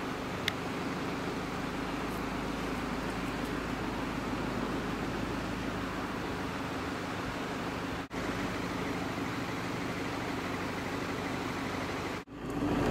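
A steady low hum with a noisy wash, most likely a motor vehicle's engine running nearby. It drops out briefly twice where the shots change.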